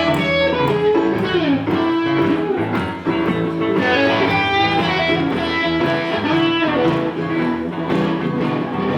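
Live electric blues played on guitar, a lead line with notes bent up and down over a steady rhythm accompaniment.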